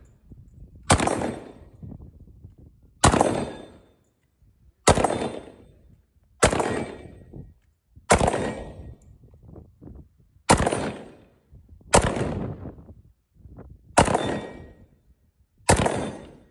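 AK-pattern rifle fired in single, deliberate shots, nine in all, about one every one and a half to two seconds. Each report is sharp and rings out over about a second before the next.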